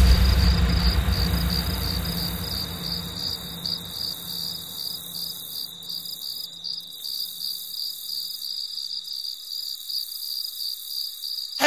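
Steady, pulsing chirping of crickets. A deep boom at the very start fades away over the next few seconds.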